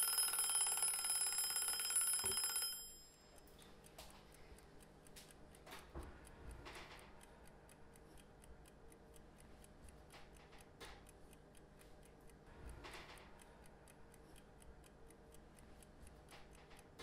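Kitchen timer bell ringing to signal that the time is up, cutting off suddenly about three seconds in. Faint, quick, even ticking follows, with a few soft knocks.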